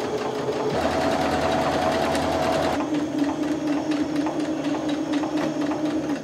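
Electric sewing machine stitching through layered fabric, its needle going up and down in a fast, even rhythm over the motor's whine. It speeds up about a second in, slows about three seconds in, and stops near the end.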